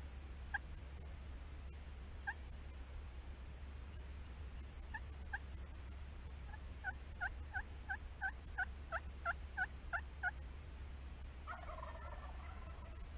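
Faint wild turkey calls: a few single yelps, then a run of about a dozen yelps at roughly three a second, and about a second and a half before the end a short rattling gobble.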